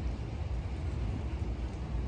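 A steady low rumbling noise, heaviest in the bass, with no distinct events.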